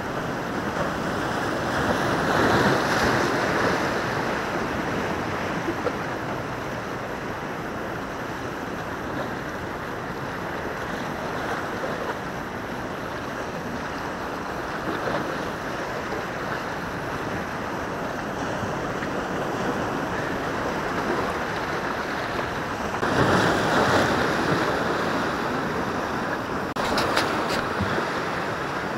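Rough sea surf washing and breaking against the rocks of a breakwater in a steady rush. It swells louder a couple of seconds in and again near the end as bigger waves break.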